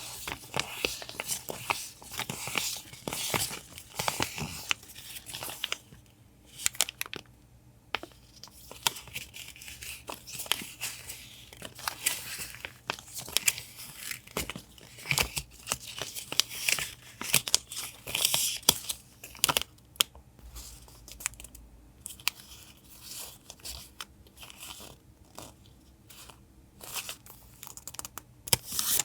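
Close-up paper handling: sheets rustling and crinkling, with tearing in short, irregular strokes and brief pauses between them.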